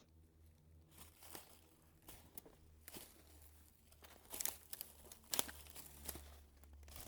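Irregular crunching and rustling of dry leaves and twigs underfoot as someone steps slowly through brush, loudest about four and a half and five and a half seconds in.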